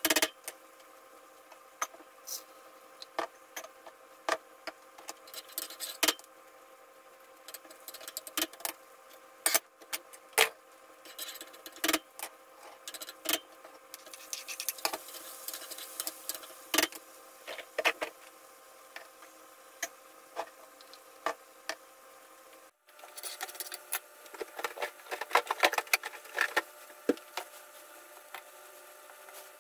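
Kitchen knife knocking and scraping on a wooden cutting board and a frying pan as tomatoes are cut and pushed into the pan, in short irregular knocks over a faint steady hum. Near the end comes a denser run of rustling and clatter.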